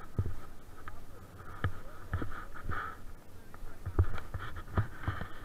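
Irregular thumps and rustles at a helmet-mounted camera over a low wind rumble, as a paraglider wing is pulled up overhead for launch.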